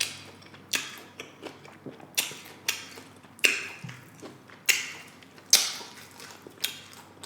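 Close-up crunching of tortilla chips being chewed: irregular sharp crunches, roughly two a second.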